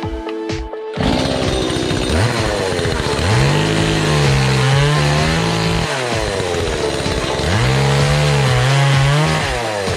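Two-stroke chainsaw revving up about a second in and held at high revs as it cuts through scrap wood, dropping back around the middle, then revving up again for a second cut and dropping back near the end.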